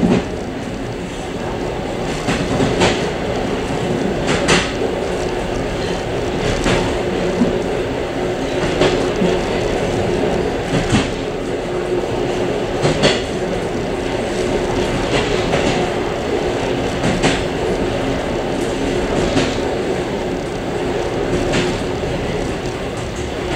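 Suburban train running steadily, heard from inside its rear vestibule: a continuous rumble with a steady hum. Its wheels clack over the rail joints about every two seconds.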